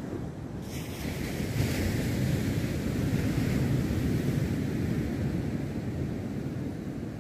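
Sea waves breaking on the beach: a steady rushing surf that swells about a second in and eases near the end, with wind buffeting the microphone.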